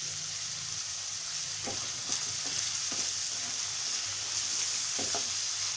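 Mixed vegetables sizzling gently in oil in a kadhai over a low flame, a steady high hiss. A few short scrapes of a spatula stirring them.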